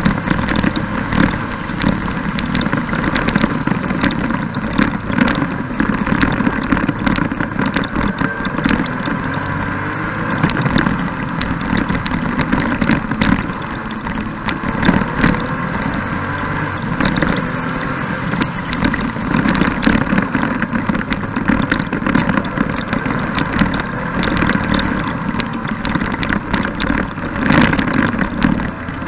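Can-Am Spyder F3-S's Rotax three-cylinder engine running at road speed, with wind rushing and crackling over the onboard camera's microphone. The engine note rises near the end.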